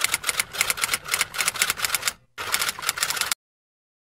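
Typing sound effect for text appearing on screen: rapid key clicks, several a second. There is a brief break a little after two seconds, and the clicks cut off suddenly about three and a half seconds in.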